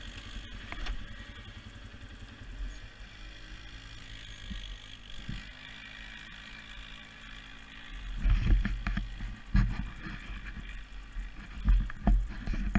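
Polaris Sportsman 400 H.O. ATV's single-cylinder engine idling steadily. About eight seconds in, it revs up as the ATV pulls away, turning into a much louder, uneven low rumble.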